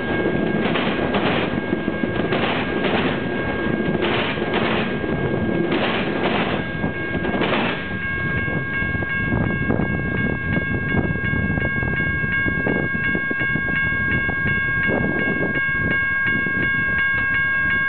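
Freight train's flatcar wheels pounding over a railroad diamond crossing at track speed: pairs of heavy knocks as each truck's wheelsets cross. About eight seconds in the knocks grow fainter and less regular, and a high, rapidly repeating ringing sets in over the rolling wheels.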